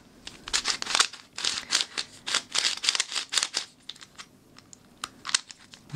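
Master Morphix, a pyramid-shaped 3x3 plastic shape-mod puzzle cube, being turned by hand: a run of quick plastic clicks and scrapes that thins out near the end. Its outer layers are dry and unlubricated, which gives the turning a scratchy, sandpaper-like feel.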